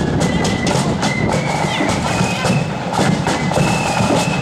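Loyalist marching flute band playing: flutes carry the tune over a steady beat from snare drums and a large bass drum.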